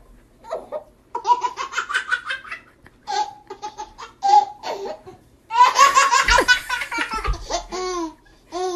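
A baby laughing hard in repeated high-pitched bursts, building to a long run of rapid laughs near the end.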